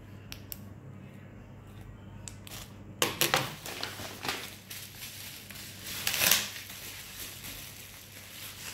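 Unboxing packaging being handled: a few light clicks, then two louder bursts of crinkling, scraping noise about three and six seconds in.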